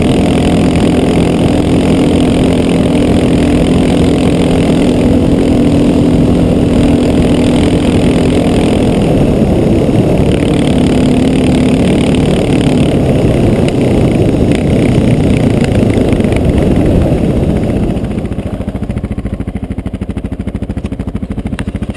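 Honda XR650L's single-cylinder four-stroke engine running under way on the move. About 18 seconds in it falls back and quiets as the bike slows down.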